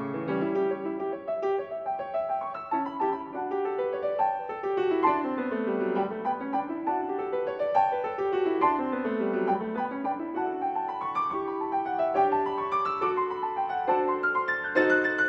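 Steinway concert grand piano played solo: fast runs sweep down into the lower register and back up, twice, then give way to repeated chords near the end.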